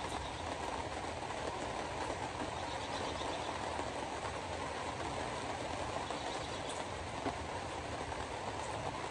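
Steady road noise heard from inside a moving car, its tyres running on wet pavement.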